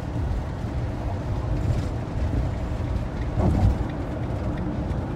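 Steady engine and tyre rumble inside a van's cab cruising at motorway speed. A brief louder swell comes about three and a half seconds in.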